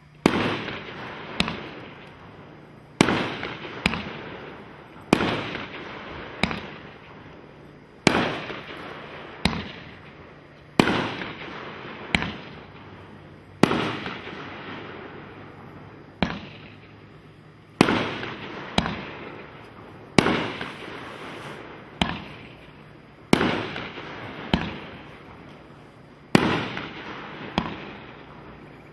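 Red Rhino 'Pirate's Code' 500-gram consumer firework cake firing shot after shot: about twenty sharp bangs, one every second or so and some in quick pairs, each trailing off over about a second.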